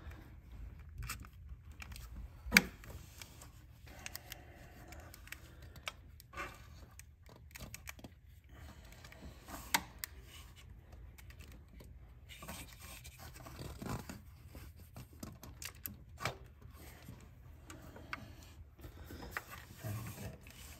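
Hand and tool work in a car's engine bay while removing the serpentine drive belt: scattered scrapes, rubs and light clicks, with a sharp metallic click about two and a half seconds in and another near ten seconds.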